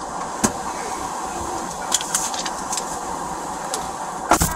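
Steady hum inside a police patrol car's cabin, with scattered light clicks and knocks, then one loud thump about four seconds in as the car door is shut.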